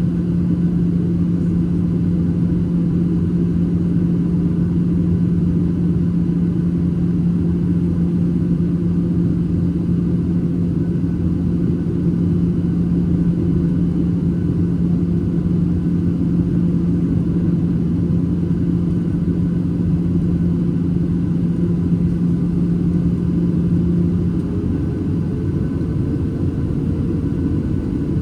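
Boeing 737-800 cabin noise: the steady rumble of the CFM56-7B jet engines and airflow. A low, steady hum drops away about three-quarters of the way through, and a higher tone rises slightly as the engine note changes.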